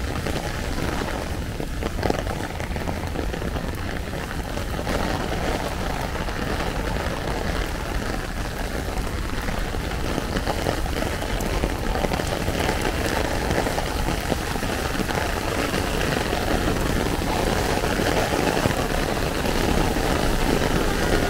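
Heavy rain falling on an umbrella held overhead and on the street, a steady, even noise.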